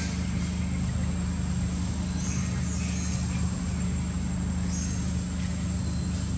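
Steady low mechanical hum with an even hiss above it, unchanging throughout. A few faint, short high chirps come through about two and five seconds in.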